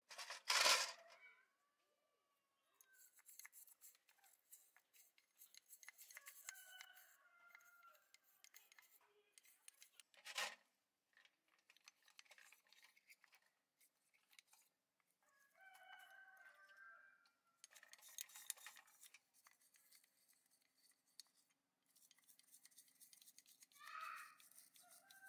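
Faint bursts of rapid, scratchy scraping, with a sharp knock just after the start and another about ten seconds in. Chickens cluck now and then.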